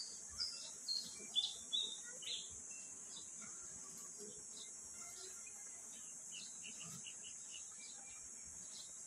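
Birds chirping: a quick run of short, loud calls in the first couple of seconds, then scattered ones. Underneath runs a steady, high-pitched insect drone.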